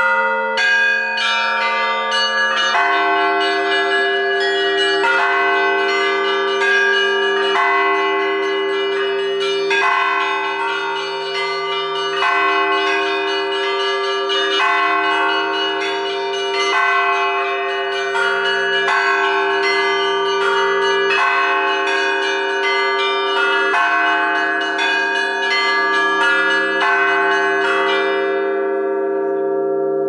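A set of Russian church bells of graded sizes, hung fixed in a steel frame and rung by ropes tied to the clappers, pealing in a quick continuous pattern of many strikes over the deep ringing tones of the larger bells. The striking stops about two seconds before the end, and the bells ring on.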